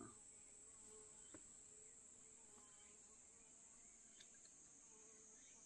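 Near silence: faint, steady high-pitched insect drone, with two tiny clicks about a second and about four seconds in.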